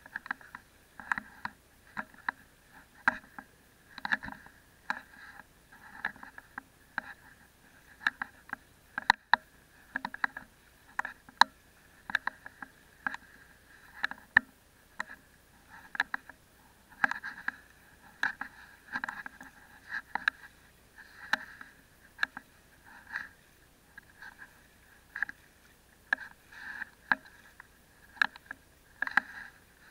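Sea water splashing and sloshing against a camera held partly underwater as it moves through the shallows. It comes in uneven bursts about once a second, with sharp clicks and knocks.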